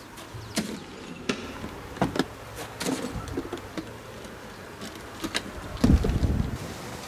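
An aluminium case being handled and its metal latches snapped open: a series of sharp clicks and clacks, with a heavier knock and low rumble about six seconds in.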